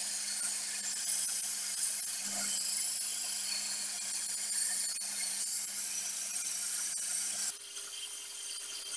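Bench belt grinder running, its abrasive belt grinding the rust off a steel bicycle sprocket: a steady high hiss over a low motor hum. About seven and a half seconds in the sound drops and a quieter, higher hum takes over.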